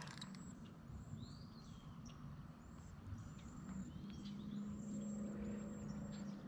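Faint evening birdsong over quiet riverside ambience: scattered short high chirps and a couple of arching calls. A low steady hum comes in about four and a half seconds in.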